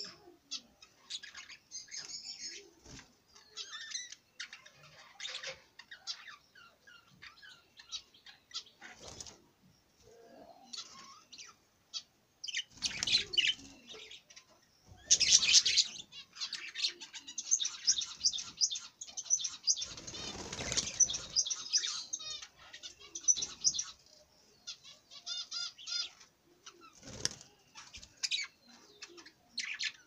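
A flock of budgerigars chirping and chattering, with several louder bursts of wing flapping in the middle.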